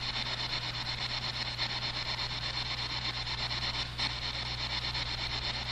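Ghost-hunting spirit box sweeping through radio static, a rapid, even chopping hiss, over a steady low electrical hum.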